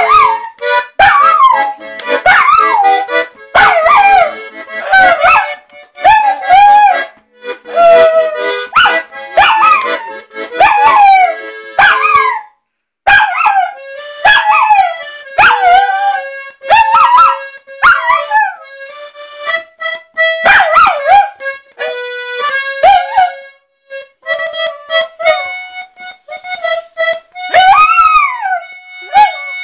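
A puppy howling in a run of short rising-and-falling howls, about one a second, along with a reed instrument playing steady held notes.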